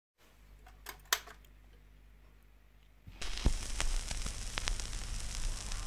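Garrard turntable playing a 78 rpm shellac record before the music starts. A faint low hum comes first, with a couple of clicks about a second in. About three seconds in the stylus drops into the lead-in groove, and steady surface hiss and crackle begins, with a few sharper clicks.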